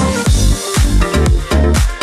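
Background music with a steady kick drum about twice a second.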